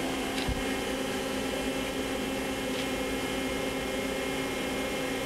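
Star SV-32J CNC Swiss-type lathe running, a steady machine hum made of several steady tones, with a faint knock about half a second in.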